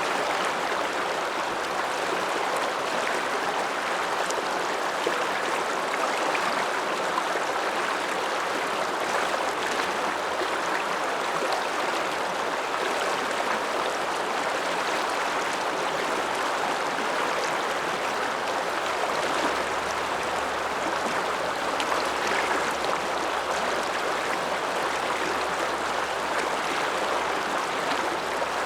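The Ramsauer Ache, a mountain river, rushing steadily.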